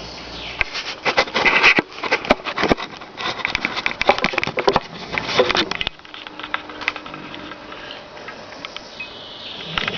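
A man snoring: a long, crackling, rattling snore that cuts off about six seconds in, followed by a quieter stretch.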